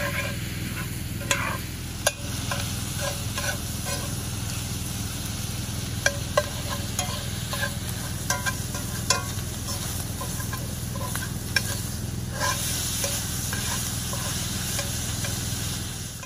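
Ground breakfast sausage sizzling in a cast-iron skillet over a campfire, stirred with a metal spatula that scrapes and clicks against the pan every so often. The sound fades out at the very end.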